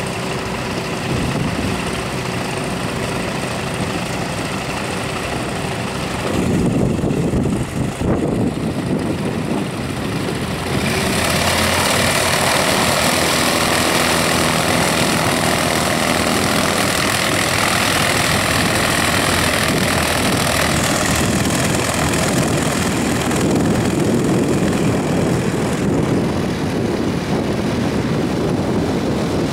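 Tecnam P2004 Bravo light sport plane's four-cylinder Rotax 912 engine and propeller running steadily at low power while the plane taxis. About eleven seconds in, the sound turns brighter and a little louder.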